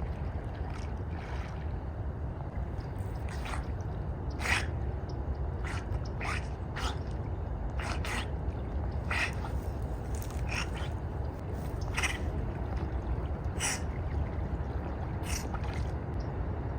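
Otters making short, sharp snorts at irregular intervals, over a steady low rumble.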